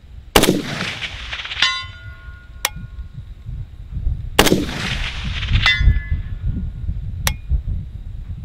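Two rifle shots from a 7.62x39 AK-pattern rifle, about four seconds apart, each followed about a second later by the faint ring of a steel target struck at 300 yards.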